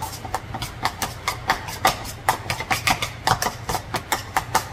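A metal spoon knocking and scraping against a ceramic bowl while stirring blueberries into thick cream cheese: quick rhythmic clicks, about four a second.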